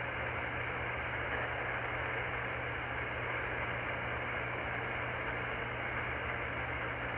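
Steady static hiss from an Icom IC-R30 receiver on 27.385 MHz lower sideband, with a low hum underneath: the open channel between transmissions, with no station keyed up.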